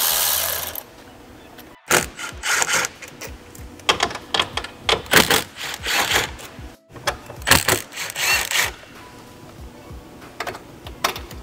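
Cordless ratchet running briefly at the start, taking out engine-bay bolts, followed by several bursts of clicking and rattling as fasteners and plastic intake parts are worked loose.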